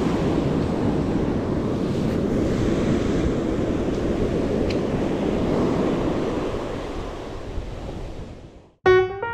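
Surf breaking and washing up a sandy beach, with wind buffeting the microphone. The surf noise fades out near the end, and piano music begins just before the close.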